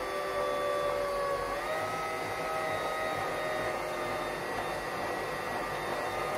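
Electric stand mixer running steadily with its cookie paddle, working dry ingredients into a thick cookie dough. Its motor whine steps up slightly in pitch about two seconds in.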